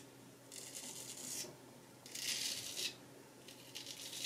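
Vintage Nashville Barber Supply Kaeser's No 402 straight razor shaving through lathered stubble on the cheek: three short scraping strokes, each under a second, with brief pauses between.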